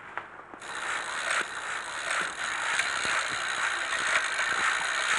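Fishing reel being cranked, a steady ratcheting whir of fine clicks that starts suddenly about half a second in: line being wound in against a fish on the hook, the rod bent over.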